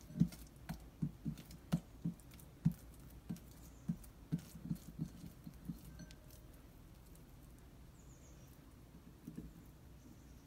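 Oiled hands squeezing and patting soft, sticky sfenj yeast dough in a glass bowl: a run of soft squelching pats, about two or three a second, that stops about six seconds in, with a few more near the end.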